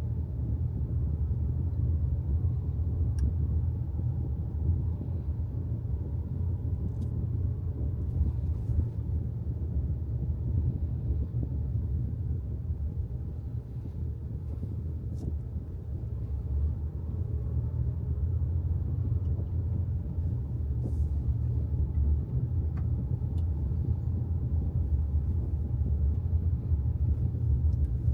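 Steady low rumble of a car driving on the road, with a few faint clicks.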